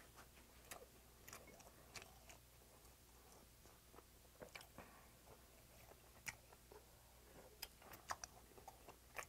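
Faint chewing of a mouthful of spicy seasoned cockles and rice, close to a clip-on microphone, with scattered soft clicks and smacks at irregular intervals.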